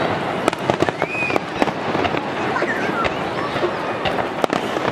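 Fireworks going off in a quick, irregular series of sharp bangs and crackles, several a second.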